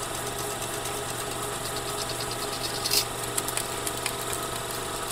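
Logo-ident sound effect: a steady machine-like hum with a rattle of clicks that thickens, and one sharp hit about three seconds in.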